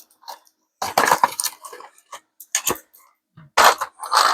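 Loose plastic keycaps clicking and clattering as they are handled in their box, in a few short bursts of clicks with pauses between.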